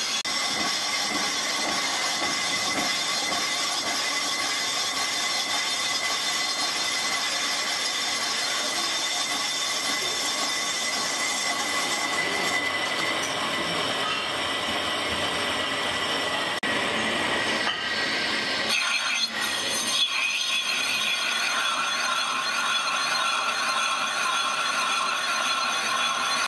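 Metal lathe turning a cast brake drum, the cutting tool machining its inner bore with a steady high-pitched ringing tone over the machine's running noise. The tone changes pitch about three-quarters of the way through.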